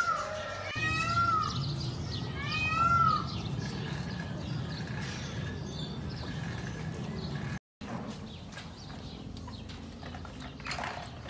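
Peafowl calling: three loud wails, each rising then falling in pitch, about a second and a half apart in the first three seconds. A low steady rumble follows, with the sound cutting out briefly about two-thirds of the way through.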